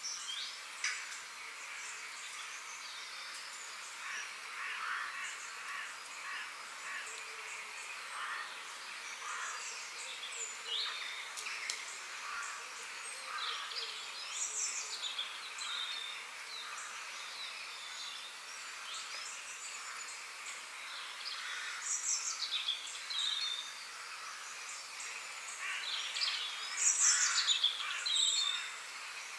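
Forest ambience: many birds chirping and calling, with louder downward-sliding whistled calls about halfway through and near the end, over a steady high hiss.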